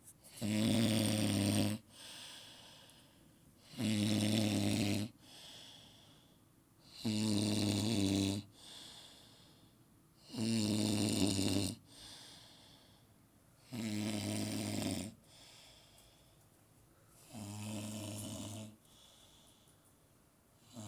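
A man snoring: six loud snores about every three and a half seconds, each lasting about a second and a half, with softer breathing between them. The last two snores are quieter.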